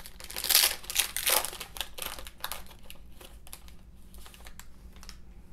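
Foil wrapper of a trading-card pack crinkling as it is opened and the stack of cards is worked out of it. The crinkling is loudest in the first two seconds, then thins to fainter rustles.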